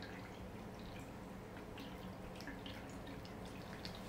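Domestic cats licking and chewing food from a person's hands: quiet, irregular wet smacking clicks, a few a second, over a faint steady low hum.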